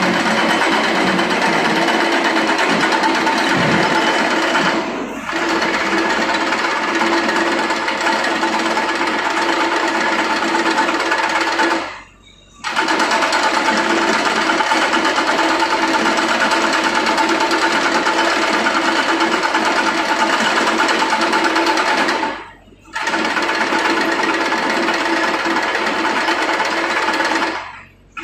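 XN20 mini excavator's Yanmar diesel engine running with a fast, steady mechanical clatter. The sound drops out suddenly and briefly a few times.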